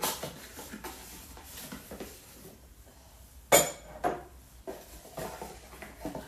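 Ceramic mug, lid and spoon being handled, with scattered knocks and clinks; the loudest clink, about three and a half seconds in, rings briefly.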